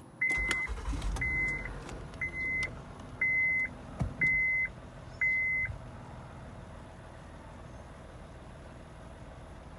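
Honda Pilot's 3.5-litre V6 cranking and catching just after the start-button press, then idling steadily. A dashboard chime beeps six times, about once a second, over the first six seconds.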